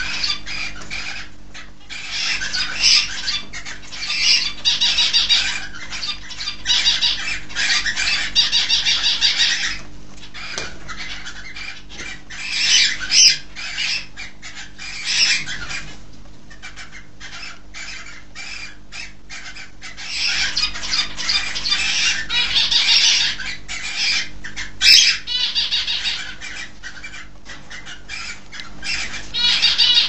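Many caged pet birds, budgerigars and cockatiels among them, chirping and chattering in a dense high twitter. It comes in several long bursts with quieter stretches between, with frequent short clicks throughout.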